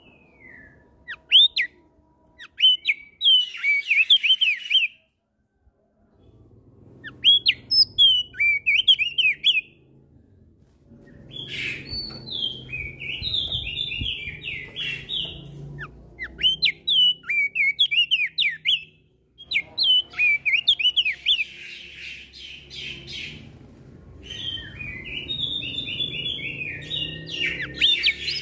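Crested white-eye (opior jambul) singing: about five phrases of rapid chirps and short rising whistles, each a few seconds long, with brief pauses between them.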